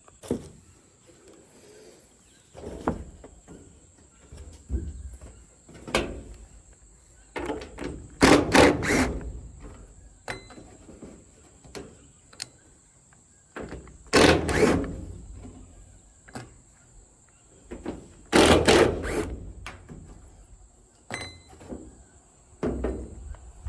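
Irregular heavy thuds and knocks of footsteps on a scaffolding walkboard laid across a barn roof, with louder clusters of several quick knocks about a third of the way in, just past the middle, and about three-quarters through. A steady high chirring of crickets runs underneath.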